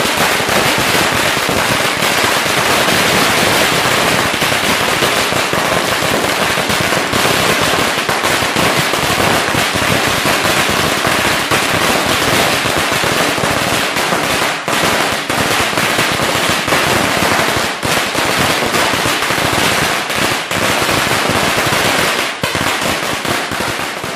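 A Standard Fireworks 3000-cracker string (wala) bursting along the road: a loud, dense, unbroken rattle of rapid firecracker bangs that starts to thin out near the end.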